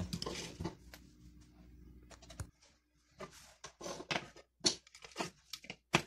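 Light handling noises of a phone charger and its cable: soft rustling, then a scattering of small plastic clicks and taps, with a sharper click near the end as the charger plug is pushed into an extension-lead socket.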